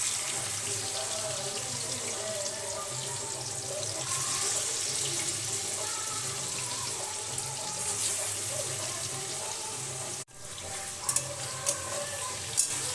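Yogurt-marinated chicken frying in hot oil in a pan: a steady sizzle. After a brief break about ten seconds in, a few sharp knocks of a spatula on the pan as it is stirred.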